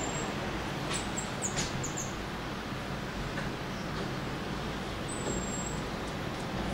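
Common marmoset giving a run of short, very high squeaks and chirps about a second in, then one brief thin, high whistle around five seconds in, over a steady background hiss and hum.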